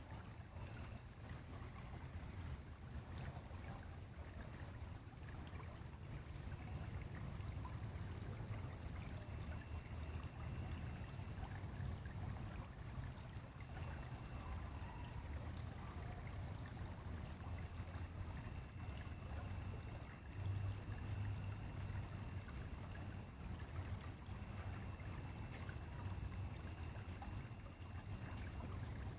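Flowing stream: a steady rush of water.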